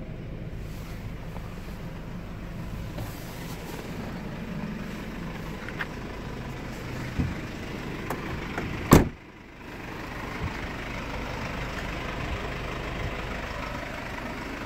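Mercedes Viano's engine idling with a steady low hum, with a few small clicks and one loud door slam about nine seconds in.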